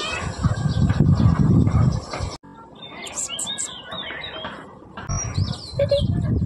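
Birds chirping in the background, with a loud low rumble on the microphone in the first couple of seconds and again near the end; the sound cuts off abruptly about two seconds in.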